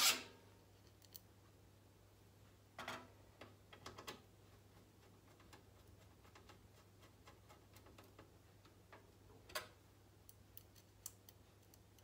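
Hand screwdriver turning small motherboard screws into a PC case's metal standoffs: scattered light metallic clicks and ticks. The sharpest click comes right at the start, with a few more clicks about three to four seconds in and another near ten seconds.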